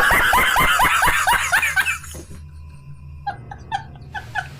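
A burst of laughter, a quick run of 'ha' pulses for about two seconds, followed by several short high-pitched squeaky chirps.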